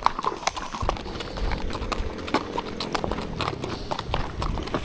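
Several horses' hooves clip-clopping on asphalt: a run of sharp, irregular clicks.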